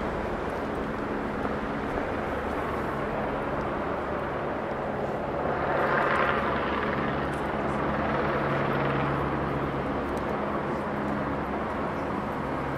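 City street traffic: a steady engine hum with a vehicle passing, louder about halfway through.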